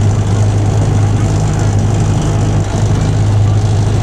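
Rheineck–Walzenhausen railcar running, heard from inside the car: a steady low hum over an even rumbling running noise.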